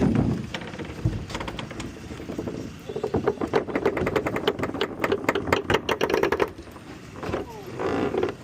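A rapid, even rattling clatter of many quick clicks runs for a few seconds in the middle, over a steady lower hum.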